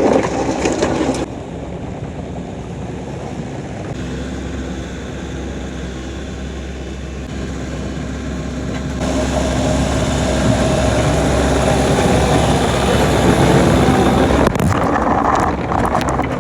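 Kobelco SK85 excavator's diesel engine running under load with its hydraulics working as the bucket back-drags the dirt pad smooth. The engine note drops about a second in and grows louder again from about nine seconds, with a few knocks near the end.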